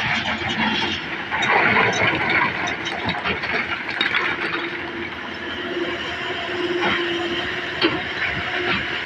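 Komatsu excavator working rock: its engine and hydraulics run with a steady hum, while rock scrapes and clatters in the bucket and into the dump truck's bed. Scattered knocks run throughout, with louder bursts of rock noise early on and near the end.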